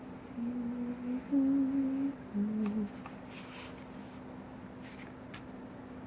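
A person hums a short tune of three or four notes over about two and a half seconds, then a paintbrush swishes a few times on paper as wet white paint is dabbed on.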